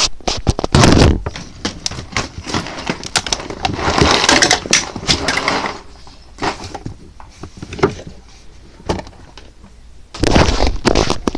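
Close handling noise at the microphone: rubbing and scraping with many sharp clicks and knocks. It comes in louder stretches about a second in, again around four to five seconds in, and near the end, with quieter scattered taps between.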